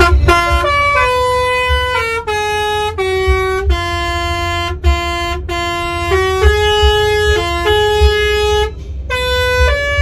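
A bus's telolet basuri musical horn playing a tune of held notes that step up and down, with a short break near the end, over the low rumble of the bus engine.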